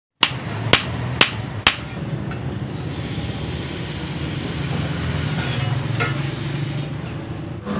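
Four hammer blows on a red-hot steel axe head against an anvil, about half a second apart, each with a short metallic ring. Then the hot axe head is quenched in a pan of water, giving a steady hiss over a low hum.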